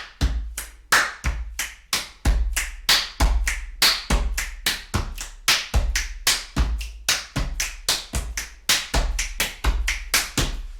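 Fast body percussion in a three-beat pattern: hand claps and slaps at about four strokes a second, with a deeper stroke on each first beat.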